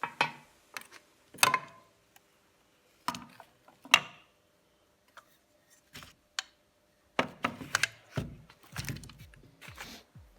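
Scattered clinks and knocks of metal tools and engine parts being handled during engine work, a few separate strikes at first, then a busier run of clinks from about seven seconds in.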